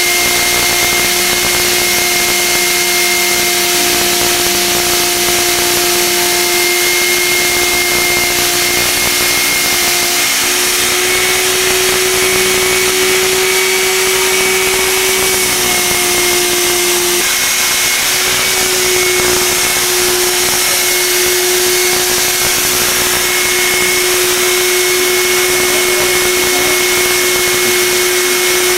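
Electric power-tool motor running steadily with a constant whine over a loud hiss. The pitch lifts slightly for a few seconds near the middle, then settles back.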